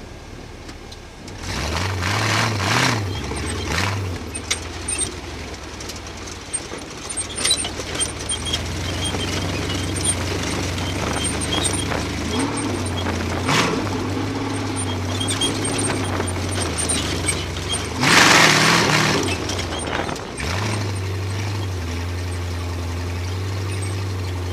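Rock racing buggy's engine running, heard from inside its open cockpit while driving over rough desert terrain, with the chassis rattling and knocking. There are two louder rushes of noise, one shortly after the start and one about three-quarters of the way through, and the engine settles into a steady low run near the end.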